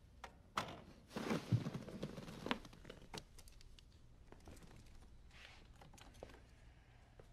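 Quiet movement sounds: clothing rustling and scattered light clicks and taps as a man shifts and takes off his glasses, with the loudest rustle about a second in.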